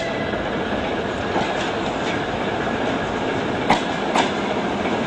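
ER2-series electric multiple unit rolling in along the platform: a steady rumble of wheels on rail, with a few faint ticks and then two sharp clacks about half a second apart near the end as the wheels run over a rail joint.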